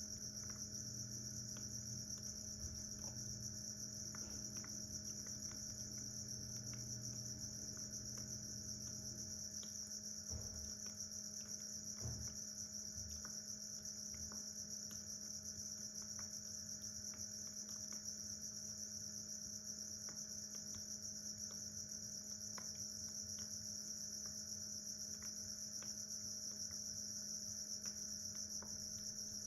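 Steady chorus of crickets, a continuous high-pitched trill, with a faint low hum beneath.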